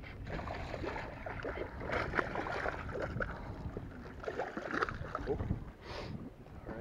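A hooked bass splashing and thrashing at the water's surface as it is reeled in beside the boat, in irregular bursts of splashing.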